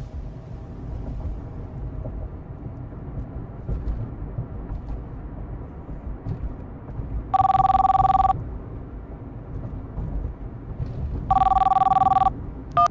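Telephone ringing twice with a steady two-pitch electronic ring, each ring about a second long and the two about four seconds apart, over a low background rumble.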